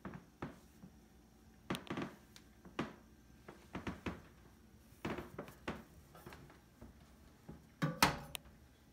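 Sheet-metal Snap-on award truck box being handled, with its roof panel put back on: an irregular series of light metal knocks, clunks and scrapes, the loudest near the end.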